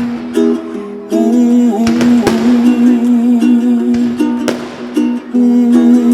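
Music without singing: a plucked-string instrument strumming steady, repeated chords, with a few sharp strokes cutting across it.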